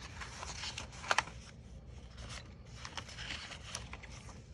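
Pages of a handmade paper journal being turned and handled: paper rustling, with two sharp clicks about a second in and another near the end.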